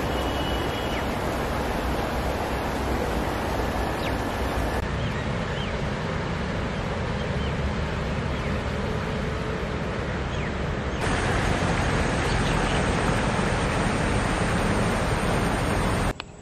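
Shallow river water rushing over rocks: a steady rush that changes in tone abruptly about five seconds in and again about eleven seconds in, then drops away just before the end.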